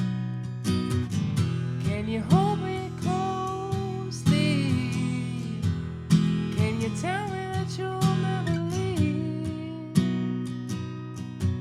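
Acoustic guitar strummed in a steady rhythm. A voice sings a gliding melody over it from about two seconds in until about nine seconds in.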